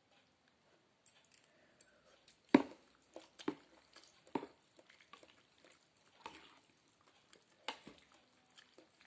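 Close-up eating of noodle soup: wet chewing and slurping with scattered sharp clicks, the loudest about two and a half seconds in.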